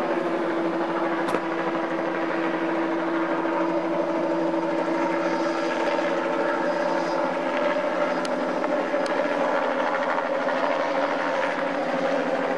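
Light helicopter flying low overhead, its engine and rotor giving a steady droning hum.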